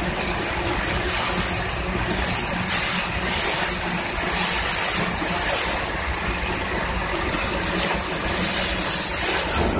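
Heavy rain pelting a moving vehicle's windscreen and body, heard from inside the cab over the steady hum of its engine, with the rain hiss swelling and easing every second or two.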